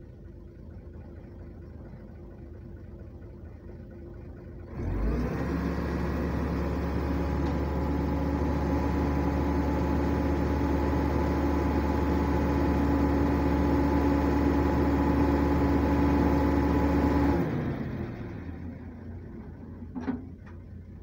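Boom truck engine and hydraulic pump working the crane's outrigger: low idle at first, then about five seconds in the engine speeds up abruptly and holds a steady drone with a hum for about twelve seconds, before winding back down to idle. A faint knock near the end.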